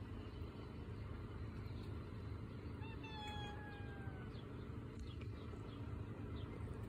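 A cat giving one long meow about three seconds in, flat to slightly falling in pitch, over a steady low rumble.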